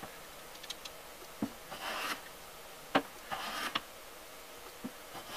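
Defiance 1204 metal hand plane taking strokes along the edge of a maple board: two short shaving cuts of about half a second each, with a few sharp knocks of the plane on the wood, the loudest about three seconds in.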